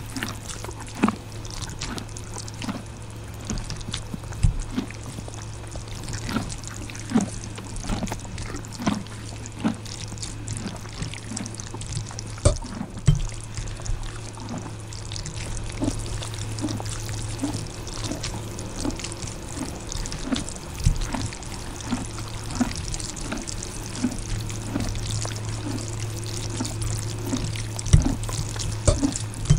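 Close-up mouth sounds of eating spicy ramen noodles: wet chewing in a steady rhythm of a little over one chew a second, with occasional slurps. A few sharp clicks of a metal fork against the plate are heard.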